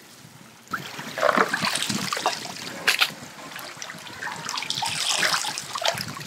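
Water splashing and sloshing as hands wash chopped raw chicken in a metal tray of water, with wet pieces lifted and dropped into a plastic colander. The splashing starts under a second in and goes on in irregular bursts.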